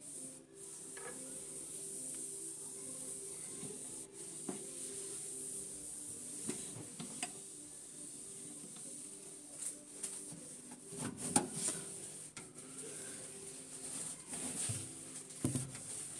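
A cloth scrubbing and wiping the grimy inside of a microwave oven, with occasional light knocks and clicks against the oven walls.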